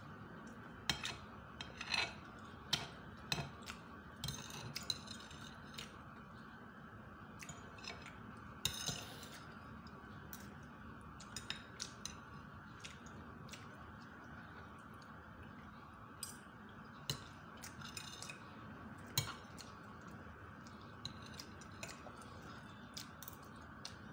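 Metal fork and spoon clinking and scraping on a ceramic plate while eating, in sharp irregular clicks, a few of them ringing briefly. A steady low hum runs underneath.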